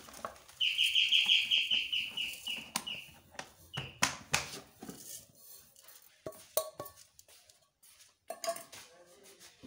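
Sugar poured from a steel cup onto rice in an aluminium pot, with scattered clicks and taps of the cup against the pot. The loudest sound comes about half a second in: a high, rapidly pulsing squeal that lasts about two and a half seconds and falls a little in pitch.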